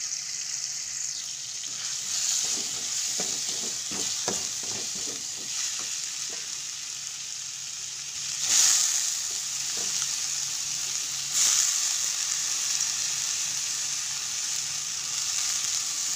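Sliced carrots sizzling in hot oil in a metal wok, stirred with a metal ladle that scrapes and clinks against the pan in the first few seconds. The sizzle flares up sharply twice, about 8 and 11 seconds in, as sliced mustard-green stems go into the hot pan.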